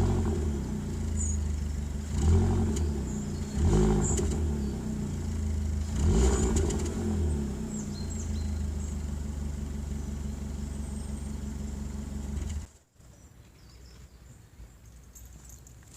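Opel Corsa E 1.2 engine through its stock exhaust, idling and revved briefly several times in the first seven seconds, then idling steadily until it is switched off and cuts out abruptly about three-quarters of the way through, leaving faint ticks.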